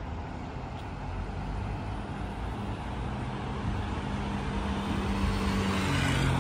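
Road traffic noise with a motor vehicle's engine humming at a steady pitch, growing gradually louder.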